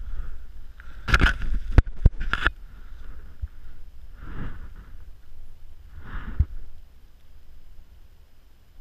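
Handling noise right at the camera: clothing rustle and gear being moved over a steady low rumble, with a loud burst of rustling and three sharp clicks about a second in, then two softer rushes of sound about two seconds apart.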